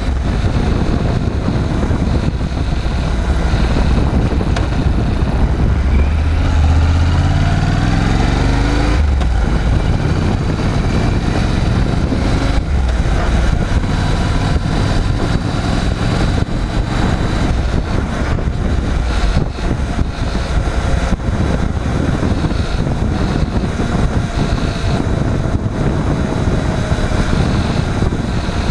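Honda NC750X motorcycle's parallel-twin engine running, its pitch climbing steadily from about five seconds in and dropping back around nine seconds, then running on under a steady rush of noise.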